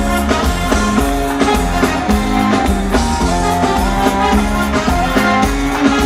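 Live reggae band music at concert volume, with a steady bass line, sustained pitched notes and a regular drum beat.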